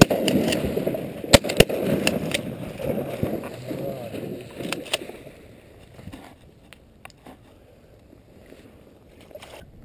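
Shotgun shots at ducks: two sharp blasts in quick succession about a second and a half in, over a loud rough rushing noise that fades away by about halfway. A few faint clicks follow.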